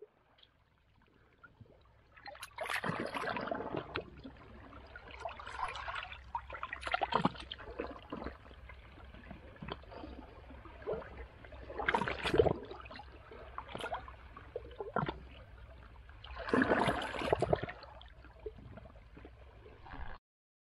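Small waves lapping and gurgling against shoreline rocks, in irregular splashes every few seconds over a low steady rumble. The sound cuts off suddenly near the end.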